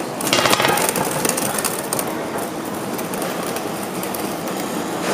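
Suitcase wheels rattling over a station platform's rough tarmac, over the steady running noise of a train standing at the platform. A short, loud burst of noise comes about half a second in.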